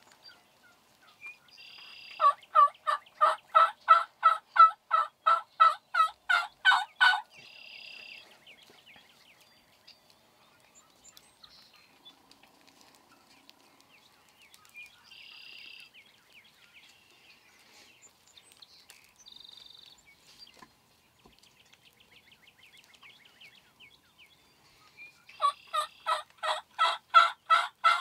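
Wild turkey yelping: a long run of evenly spaced, loud yelps, about four a second, lasting around five seconds, then a second run starting near the end. A few short, higher notes come in between the runs.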